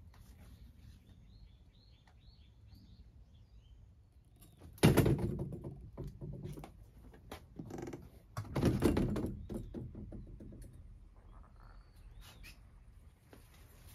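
A bird chirping a quick run of short notes in the first few seconds, then two loud bursts of knocking and rustling, about five and nine seconds in.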